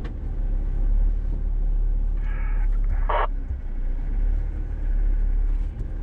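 Jeep Wrangler TJ crawling slowly over rocks, its engine and drivetrain making a steady low rumble heard from inside the cab. A brief faint clatter comes about three seconds in.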